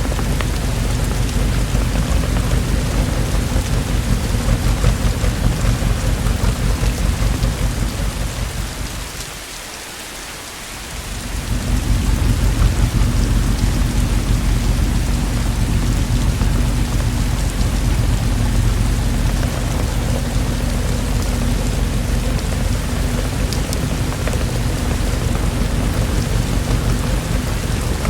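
Steady heavy rainfall with a deep rumble of thunder underneath; the sound dips briefly about ten seconds in, then comes back.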